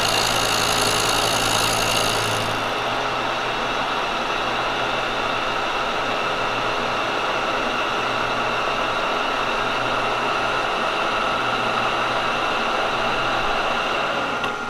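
Kearney & Trecker milling machine running a carbide face mill across a cast iron machinist-square casting. About two and a half seconds in, the high ringing tones of the cut drop away and the machine runs on steadily.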